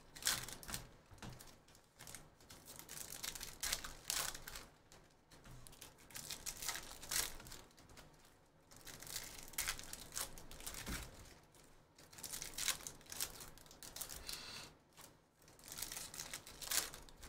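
Wrappers of Bowman University Chrome basketball card packs crinkling and tearing as they are opened by hand, in irregular crackly bursts a second or two apart, with trading cards being handled in between.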